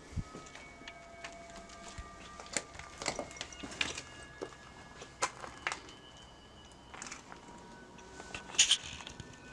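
Footsteps crunching over rubble, broken boards and debris on a floor, with irregular sharp cracks and snaps underfoot; the loudest crack comes near the end.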